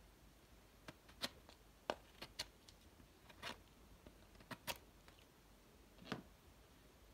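Knife blade whittling a wooden stick: a string of short, faint cutting strokes at irregular intervals.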